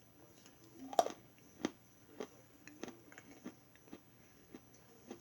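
Crunchy food being chewed: a run of sharp crunches about every half second, the loudest about a second in.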